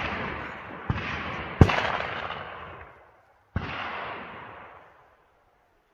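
Three gunshots: one about a second in, a louder one just after it, and a third some two seconds later. Each is followed by a long rolling echo off the wooded hillsides that slowly dies away, and the echo of a shot fired just before is still fading at the start.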